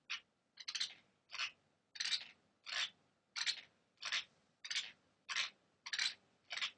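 A sleeping person's teeth grinding (bruxism), picked up by a laptop microphone: about a dozen short, harsh scraping strokes in a steady rhythm, roughly three every two seconds.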